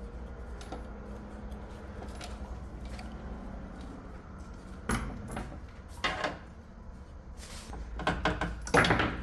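Metal clinks and knocks of tools and screws as a washing machine's motor is unbolted: a few separate knocks about five and six seconds in, then a louder run of clatter near the end, over a steady low hum.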